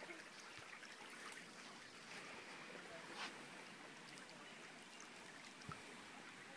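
Near silence: the faint, steady trickle of a shallow creek, with one faint tick about three seconds in.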